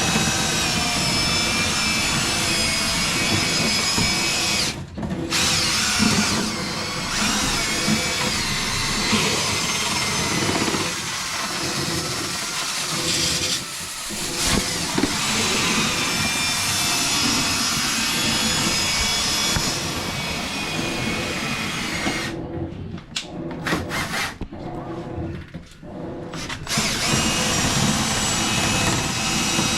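Power drill spinning a rotary brush through a dryer vent duct to knock loose built-up lint, running steadily with a wavering whine. It stops briefly a few times and goes on and off for several seconds late on.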